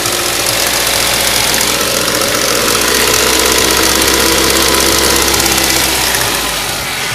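Ford Duratec HE 1.8 inline-four engine running with a rapid knocking clatter, the unexplained fault that the owner is asking about. The engine comes up slightly in the middle and settles back near the end.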